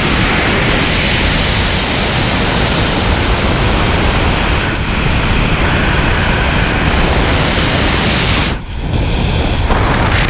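Loud, steady rush of freefall wind over a helmet-mounted camera's microphone, briefly dropping once near the end.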